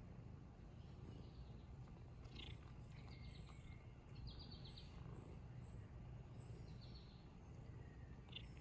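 Near silence: a faint outdoor background with a steady low rumble and a few faint, high chirps and short quick trills scattered through it.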